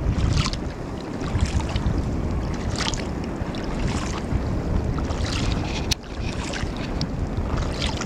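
Wind buffeting the microphone over water lapping and splashing against a boat's hull, with hissy splashes about once a second. The sound drops out briefly about six seconds in.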